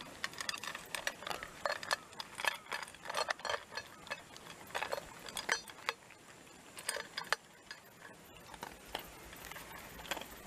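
Shiba Inu eating dry kibble from a stainless steel bowl: quick, irregular crunching and clinks of kibble and teeth against the metal, with a short lull around eight seconds in.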